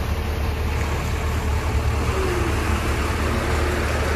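Loaded multi-axle Tata diesel truck rolling slowly past, its engine a steady low rumble.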